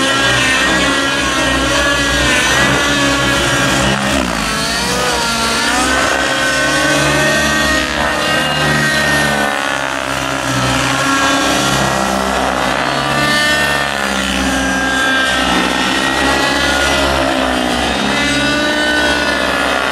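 Two radio-controlled model aircraft flying 3D aerobatics together, their motors giving overlapping whines whose pitch keeps rising and falling as they throttle and swoop through manoeuvres.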